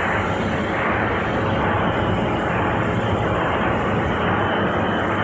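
Puffed snack production line machinery running steadily: a constant mechanical din with a low hum underneath.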